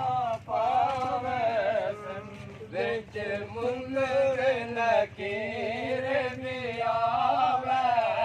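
Men's voices chanting in long, wavering phrases with short breaks between them: the religious chant of a Muslim funeral procession walking behind the bier.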